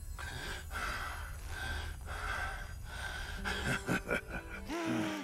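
A man straining with effort: hard gasps and breaths through clenched teeth, turning near the end into pitched, strained grunts. Under it runs a low steady rumble that stops just before the end.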